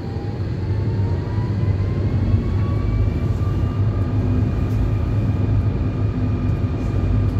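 Electric tram's traction motor whining as it accelerates: the whine rises in pitch over the first few seconds, then holds steady above a constant low rumble.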